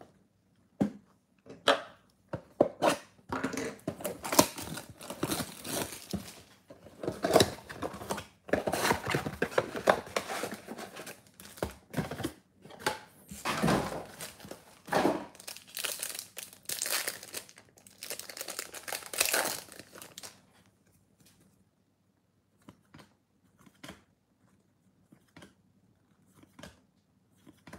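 Cardboard flaps of a Bowman Baseball trading-card box being torn open, then the crinkle and tear of the wrapping around the card packs, in irregular rustling bursts. The tearing and crinkling stop about twenty seconds in, leaving only a few faint clicks of cards being handled.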